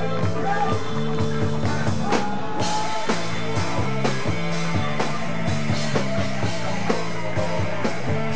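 Live rock band playing with electric guitars, bass and drums over a steady beat.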